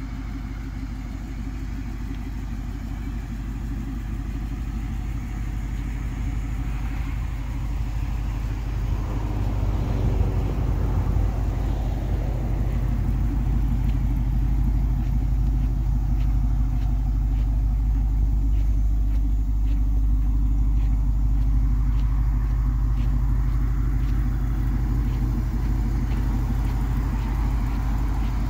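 Pickup truck engine idling with a steady low rumble, growing louder over the first several seconds and then holding. Faint light ticks come at an even pace in the second half.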